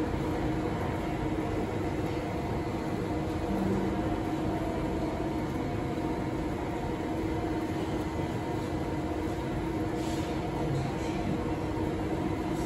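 Beijing Subway Line 6 train standing at the platform, its onboard equipment giving a steady hum with several held tones. A few faint clicks come near the end.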